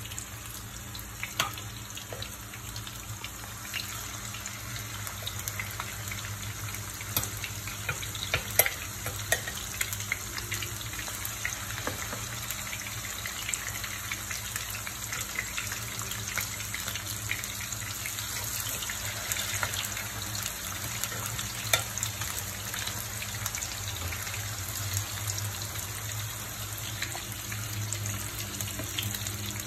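Fish steaks sizzling in hot oil in a frying pan: a steady hiss full of small crackles, with a few louder spits as more pieces go into the oil.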